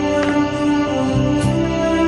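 Background music from the drama's score: slow, held notes that change pitch in steps.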